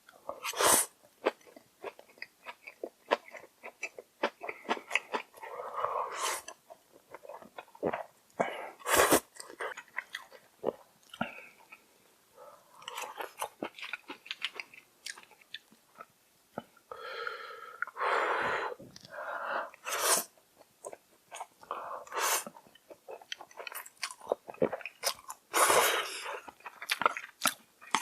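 Close-miked eating of Jjapagetti and Buldak bibim-myeon noodles: wet chewing and mouth smacks throughout, broken by a few longer slurps, each about a second long.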